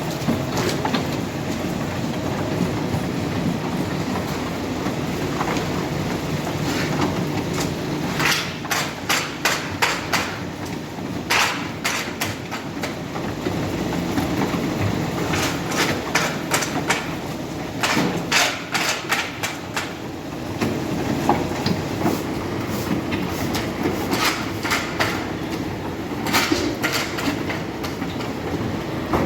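Heavy asphalt-paving machinery running steadily, with repeated bursts of rapid metallic clanks and knocks.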